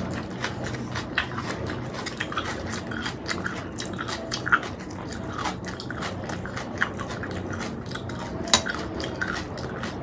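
Close-miked chewing of puri with chickpea curry, full of wet mouth clicks and smacks. Two sharper, louder clicks come about four and a half and eight and a half seconds in.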